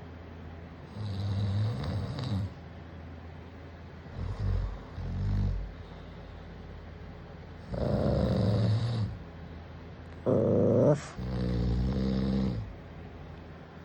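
A man snoring in long, heavy breaths every few seconds, with a Maltese dog growling at it. The loudest and sharpest outburst comes about ten seconds in.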